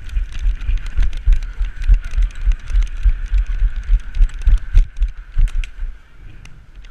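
Movement and handling noise on a body-worn camera: irregular low thumps with many small clicks and rattles, as of a player moving with gear, easing off near the end.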